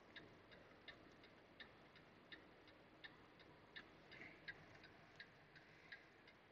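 Near silence with a faint, even ticking, nearly three ticks a second.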